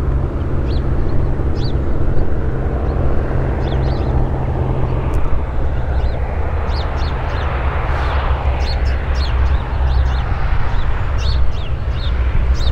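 Single piston engine and propeller of a GippsAero GA8 Airvan droning steadily at low power on landing approach, swelling briefly about eight seconds in. Birds chirp throughout, with short high calls that come more often in the second half.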